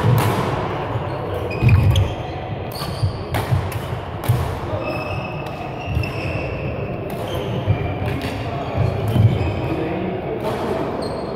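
Badminton rally: sharp cracks of rackets striking a shuttlecock at irregular intervals, with footfalls thudding on the court floor and short shoe squeaks, ringing in a large sports hall.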